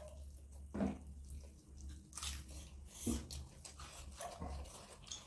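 Close-up eating sounds: chewing and mouth noises, with a few short, separate sounds about a second in, around three seconds in and just past four seconds, over a steady low hum.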